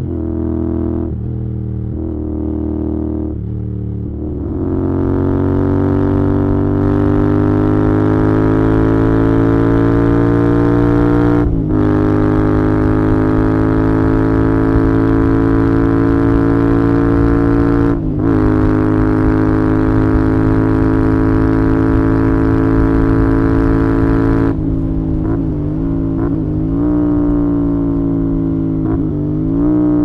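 Royal Enfield Interceptor 650's 648 cc parallel-twin engine and exhaust under way on the move. The note is lower and unsteady for the first few seconds, then picks up about four seconds in and pulls with a slowly rising pitch, breaking off briefly twice. Near the end the note wavers and drops as the throttle comes off.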